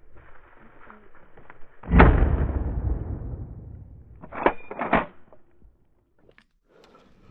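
A single rifle shot about two seconds in, its report echoing away over a couple of seconds, followed by two sharp clicks about half a second apart.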